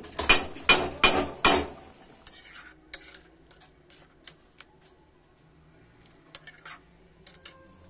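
Metal spatula scraping and clinking against a steel kadhai while a curry is stirred: several quick strokes at first, then a few scattered light clinks.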